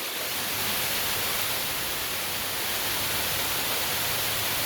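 Rain falling and water noise, heard as a steady, even hiss.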